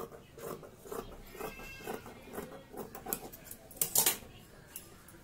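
Large tailor's shears snipping through cotton fabric in a run of short crisp cuts, trimming a hem edge into a curve, with one louder sharp clack about four seconds in.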